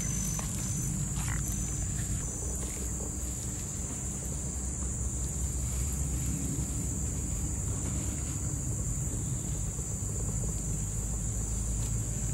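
Steady high-pitched drone of insects over a continuous low rumble, with a few faint soft clicks near the start as gloved hands work spice paste onto the fish.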